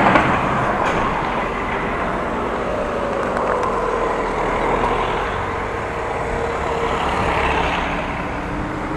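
Road traffic, with cars going by; one passing vehicle's engine tone falls in pitch near the middle.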